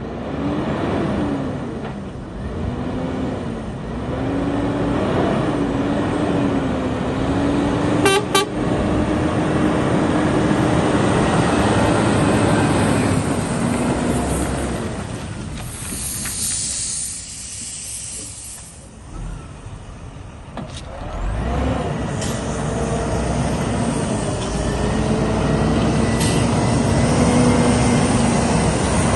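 2007 Scania R480 truck's diesel engine driving by, its note rising and falling with the revs and gear changes, with a brief click about eight seconds in. About halfway through a hiss of air from the air brakes sounds as the engine quietens, and then the engine picks up again.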